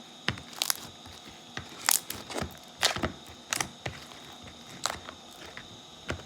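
Blue slime with foam beads being squeezed and worked by hand, giving sharp clicks and pops at irregular intervals.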